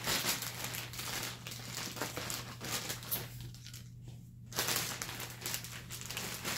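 Clear plastic zip-top bag crinkling and rustling as it is handled and rummaged through. It goes quieter for about a second past the middle, then resumes.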